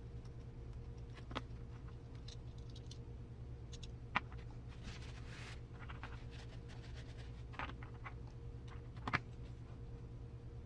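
Light, sharp clicks and brief scratchy rustles of small plastic and metal parts being handled and fitted while assembling a 1/10-scale RC crawler's two-speed gearbox: three distinct clicks, the loudest about four seconds in, over a steady low hum.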